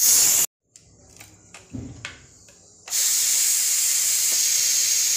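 Pressure cooker releasing its steam through the vent as the whistle weight is lifted after cooking: a loud steady hiss. The hiss cuts off suddenly after half a second, a few light clicks and knocks follow, and then the hiss comes back about three seconds in and holds steady.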